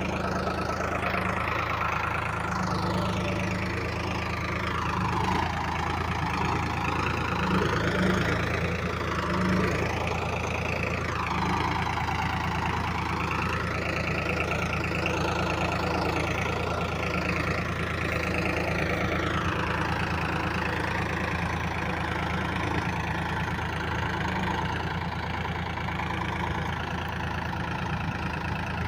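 Sonalika DI 35 tractor's diesel engine running steadily as it pulls a trolley loaded with sacks of potatoes, with a higher wavering tone rising and falling over it.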